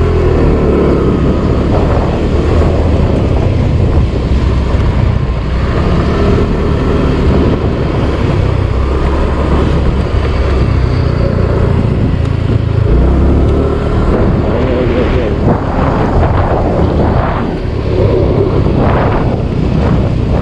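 Wind rushing over the microphone of a moving motor scooter, with the scooter's engine running underneath. The engine pitch rises and falls a few times.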